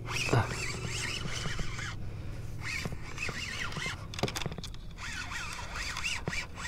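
Fishing reel being cranked to bring in a hooked fish: a rhythmic whirring whine that rises and falls with each turn, in several spells with short pauses between them.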